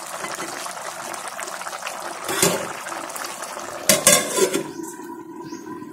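Chicken curry simmering and bubbling in an aluminium pot, with metal clanks about two and a half and four seconds in as the lid is put on the pot. After the lid goes on, the bubbling hiss turns duller.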